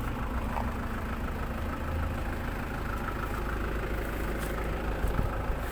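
Nissan Patrol engine idling steadily, running again now that its ECU has a direct power feed wired in to cure a crank-no-start caused by a lost supply to the ECU.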